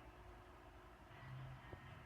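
Near silence: faint room tone, with one faint tick about three quarters of the way through.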